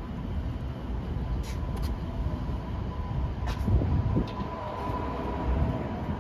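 City street noise heard while walking: a steady low rumble of traffic, with a faint steady high tone for a few seconds in the middle and a few light clicks.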